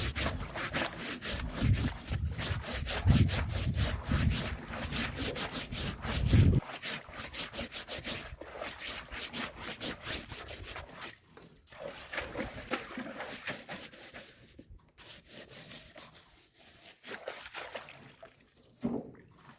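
Rapid, rhythmic scrubbing strokes on a fish trap, rubbing off the algae that coats the new trap. The strokes are densest in the first half and thin out after about eleven seconds, with a low rumble under them that stops abruptly partway through.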